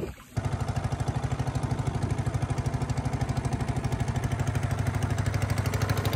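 A small wooden river boat's engine running steadily under way, with a fast, even chugging that starts about half a second in.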